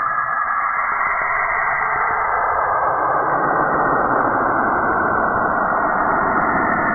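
Saturn's radio emissions converted into audio: a steady, dense rushing noise with faint tones running through it.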